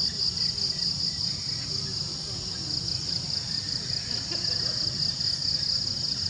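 Steady high-pitched insect chorus with a fast pulsing shimmer, over a low background rumble.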